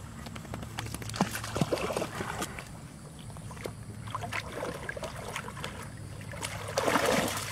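Water splashing and sloshing as a dog wades and a Labrador puppy paddles through shallow pond water, in irregular bursts, loudest near the end.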